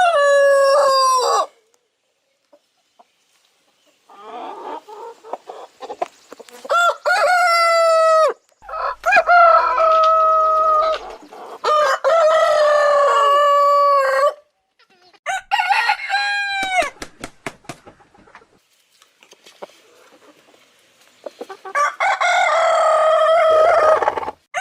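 A rooster crowing over and over: several long cock-a-doodle-doo crows, separated by short silences.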